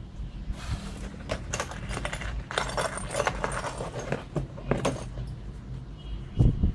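Small loose metal parts clinking and rattling as they are handled and shifted about, in a string of short irregular clinks.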